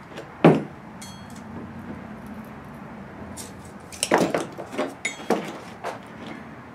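Square steel tubing and a metal tape measure handled on a wooden workbench: one sharp knock about half a second in, then a run of clanks and clinks with brief metallic ringing between about four and six seconds.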